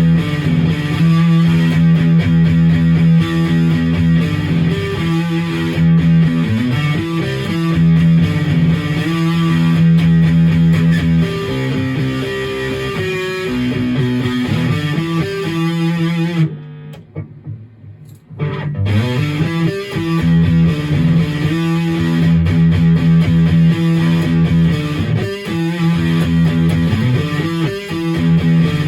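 Maverick Chaos 2 HT electric guitar played through a Brown Creature distortion pedal: heavy distorted riffs and held low notes, with a brief break about two-thirds of the way through before the riffing starts again.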